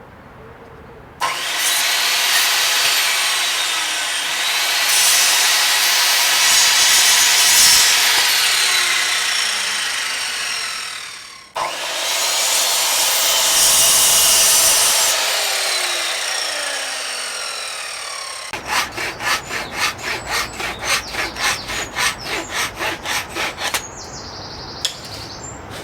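Wood being cut with a saw. There are two long continuous cuts that sound like a power saw, and then about five seconds of quicker, rhythmic back-and-forth hand-saw strokes through a board.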